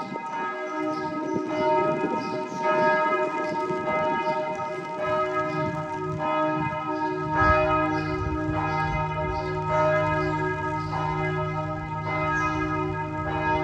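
Church bells pealing, several bells ringing together with fresh strikes about every second. A deeper bell hum joins about halfway through.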